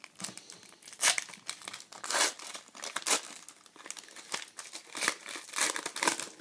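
Foil trading-card pack being torn open and crinkled by hand, in a string of irregular crinkles and rips, the loudest about a second and two seconds in.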